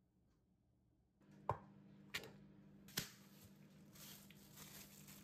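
Faint steady room hum with three short, sharp clicks or taps, the first about a second and a half in and the last about three seconds in.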